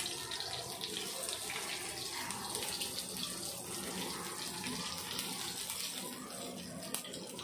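Rice-flour-coated rawas (Indian salmon) fillets sizzling in shallow oil in a flat pan: a steady crackling hiss, with a single sharp click near the end.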